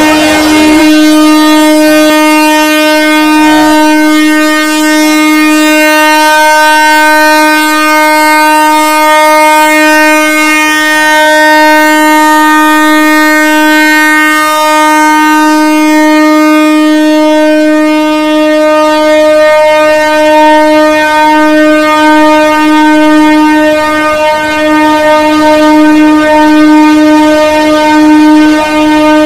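Electric locomotive's air horn (WAP-4) sounding one long, loud, unbroken blast at a single steady pitch, starting to waver slightly in strength about two-thirds of the way through. The blast goes with the green flag shown from the cab to signal departure.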